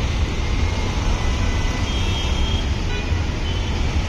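Steady road-traffic noise with a deep rumble, from cars and buses on an airport terminal forecourt.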